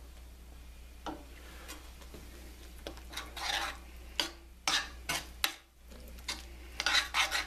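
Metal spoon stirring chunks of chicken in a thick cheese sauce in a stainless steel skillet. A run of scrapes and clinks against the pan starts about three seconds in, over a steady low hum.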